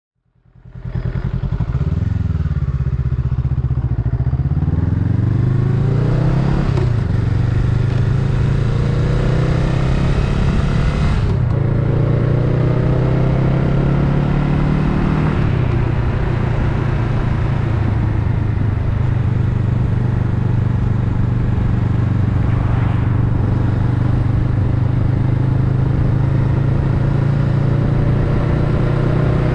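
Honda Rebel 500's parallel-twin engine pulling away and accelerating up through the gears, its pitch climbing and dropping at shifts about 7, 11 and 15 seconds in, then running steadily at cruising speed with a slow rise.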